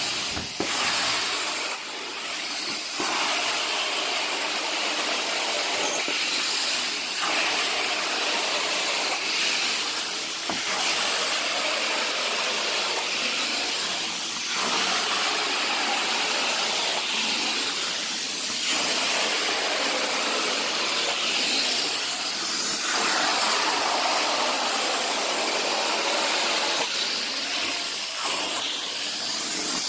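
Carpet-cleaning extraction wand's vacuum drawing air and water through its head as it is pulled across the carpet. It makes a loud, steady hiss that changes in tone every few seconds, with each stroke.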